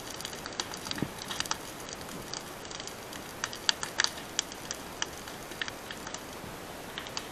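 Dry grass and undergrowth burning, crackling with irregular sharp snaps and pops.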